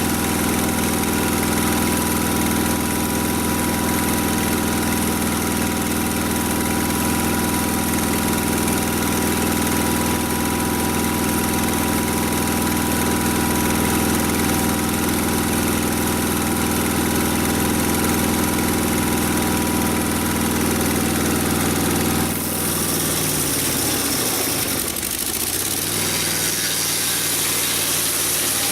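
Mobile Dimension sawmill's engine running steadily at a constant speed. About 22 seconds in its steady tones break off and a rougher, noisier mechanical sound takes over.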